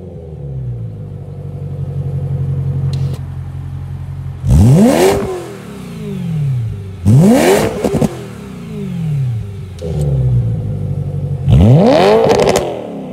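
BMW E92 M3's 4.0-litre V8 through a Bomiz valvetronic muffler, the rest of the exhaust stock, idling and then free-revved three times. Each rev climbs fast and falls back to idle, with a few crackles after the second.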